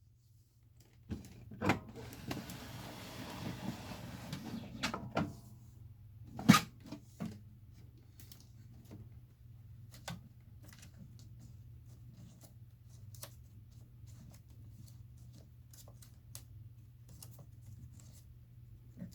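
5.25-inch floppy disks being handled: several seconds of rustling of sleeves and flexible disks with sharp clicks, a single loud knock about six seconds in, then scattered light clicks and taps over a steady low hum.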